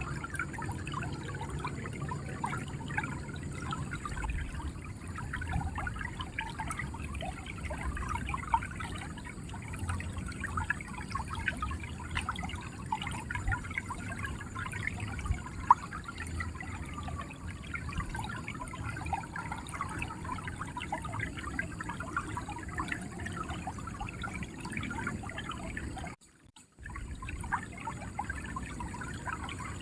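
River water flowing over rocks, a steady rush with constant small gurgles and trickles. The sound cuts out briefly near the end, then resumes.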